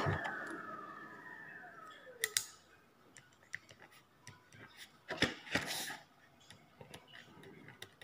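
A siren winding down: its pitch falls and it fades away over the first two seconds or so. Scattered light clicks and knocks follow.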